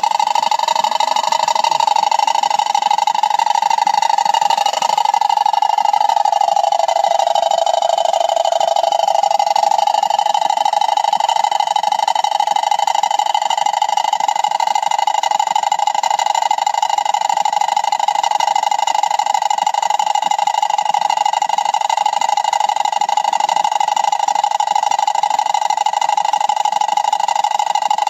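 Homemade tin-can toy water wheel spinning under a jet of water, giving off a steady whirring hum as the rod turns in the can, with water splashing. The hum's pitch dips about five seconds in as the wheel slows, then climbs back and holds steady.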